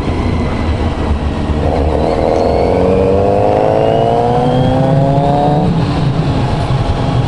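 Kawasaki Z900RS inline-four with a K-Factory titanium full exhaust, accelerating under way: from about two seconds in the engine note climbs steadily for about four seconds, then drops away suddenly. A low wind rumble lies underneath.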